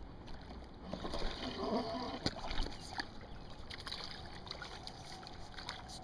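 A hooked smallmouth bass splashing in the water as it is fought in on rod and reel, with a few sharp clicks, over the steady sound of the river.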